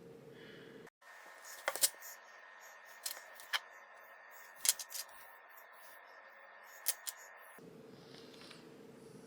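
Small sharp clicks and snips of hands working on the parts of a small RC crawler, about seven in all, scattered over several seconds, some in quick pairs.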